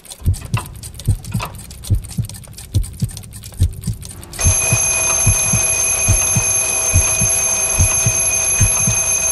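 Alarm clock ticking, then about four and a half seconds in its alarm starts ringing, a loud steady ring that goes on until it cuts off suddenly near the end: the wake-up alarm.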